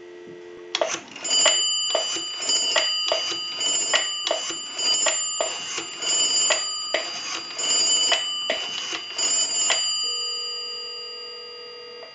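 Dial tone on the line for the first second. Then the rotary dial of a Northern Electric QSD-3A three-slot payphone is turned and let run back digit after digit, its pulses clicking over the amplified line for about nine seconds. About ten seconds in a steady ringback tone starts as the dialled call rings through.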